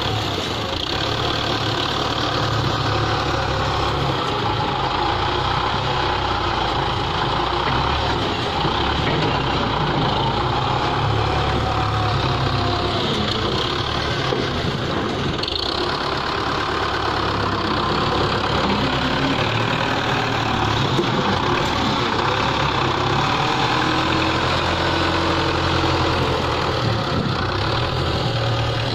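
Belarus 510 tractor's diesel engine running steadily while it works a front-end loader, lifting and tipping a bucket of dung.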